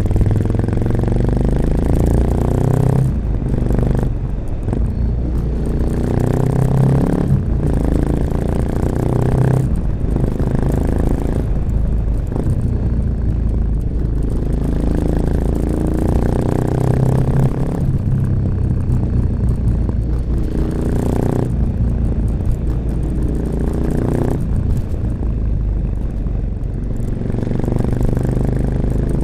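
A 1986 Honda XL600RM's single-cylinder four-stroke engine, through an aftermarket XRacing exhaust with its dB killer fitted, pulling under load. Its note rises and falls with the throttle, dropping off briefly about a dozen times, as at gear changes or when rolling off.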